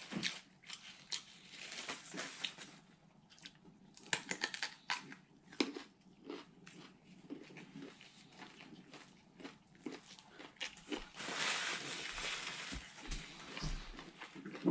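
A person eating close to the microphone: chewing and biting food, with scattered crunches and wet mouth clicks. A stretch of soft hiss comes about two-thirds of the way through.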